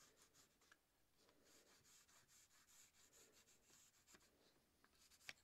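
Faint, quiet scratching of a pen drawing on cardstock as it traces around an axe head, in short strokes, with a single light click near the end.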